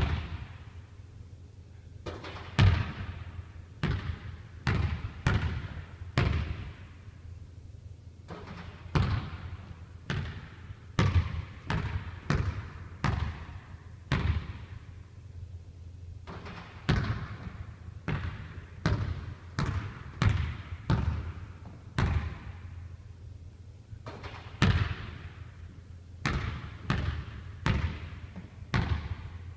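Basketball dribbled on a hardwood gym floor: runs of sharp bounces with short pauses between, each bounce ringing in the large hall.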